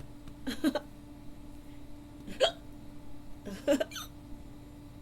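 A woman hiccuping: three short, sharp hiccups about a second and a half apart, over a faint steady hum.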